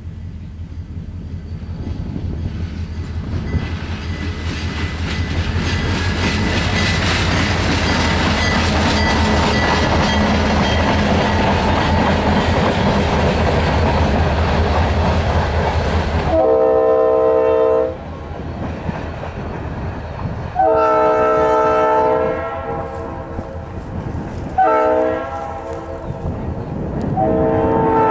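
Diesel freight train passing close by, its rumble building and then the steady rolling of the cars. It cuts off abruptly about 16 seconds in. Then a train's chord horn sounds the grade-crossing signal: long, long, short, long.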